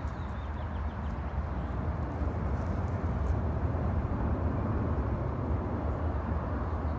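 Steady outdoor background rumble and hiss, swelling slightly about halfway through, with a few faint small clicks.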